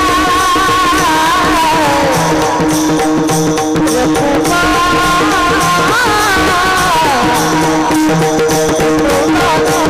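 Varkari devotional singing: a voice sings long, ornamented phrases of the abhang over a steady drone, with pakhwaj drum strokes keeping the rhythm. The voice falls away after about two seconds and comes in again near the middle with a second phrase.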